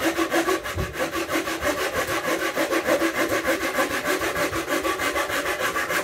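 Ryoba Japanese pull saw, on its crosscut teeth, flush-cutting the end of a plywood gusset. It goes in quick, even back-and-forth strokes, several a second.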